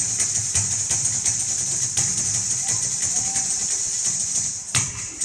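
Rapid Kathak footwork imitating a running train: fast stamping under a continuous bright hissing shimmer, with stronger accents about twice a second. It stops abruptly near the end.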